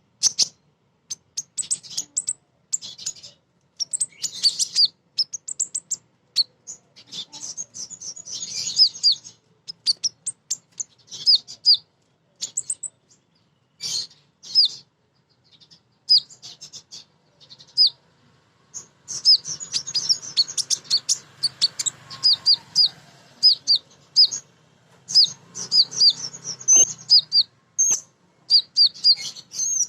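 Female sunbird ('kolibri ninja') chattering in quick, high chirps, in bursts with short gaps. Near the end it breaks into longer, rapid runs of chirps.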